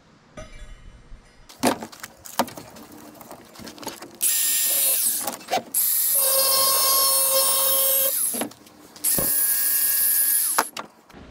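A few knocks and clatter, then an angle grinder with a cutoff wheel cutting threaded rod in three bursts, about a second, two seconds and a second and a half long. Each burst is a steady motor whine under a loud, hissing metal-cutting screech.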